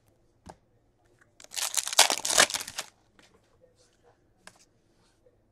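Hockey trading cards being slid off a stack and handled, giving a crinkly rustle of about a second and a half, starting about a second and a half in. A couple of faint ticks come before and after it.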